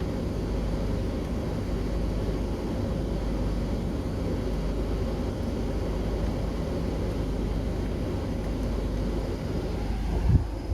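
Steady low rumble and noise of a vehicle, with no distinct mirror-motor whine standing out, and a single short thump about ten seconds in.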